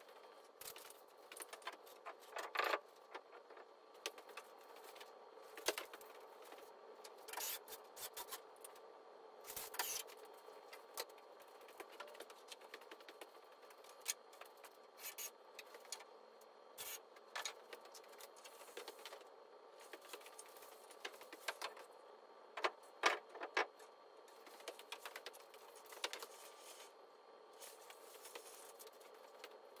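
Irregular knocks, clicks, scrapes and footsteps of someone working on timber wall framing laid on a concrete floor, over a faint steady hum.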